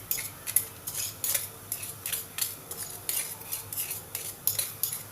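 A metal spoon scraping and clinking against a mortar in quick repeated strokes, about three or four a second, as pounded spices and ginger are scraped out into a pot of water.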